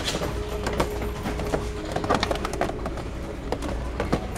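Plastic blister-pack action figures on their cardboard cards being handled on store peg hooks, giving scattered light clicks and crackles over a steady low store hum.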